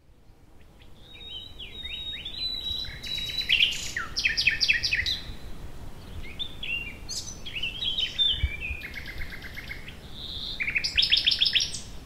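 Songbird singing a varied song of whistled phrases and fast trills of repeated notes, fading in over the first couple of seconds.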